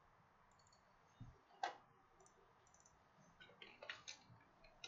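Faint clicks of a computer keyboard and mouse: a low knock and a single sharp click a little over a second in, then a quick run of light clicks near the end.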